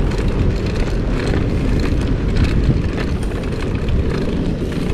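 Wind rumbling across the microphone of a bicycle rider on the move: a steady low roar with irregular scratchy crackle above it.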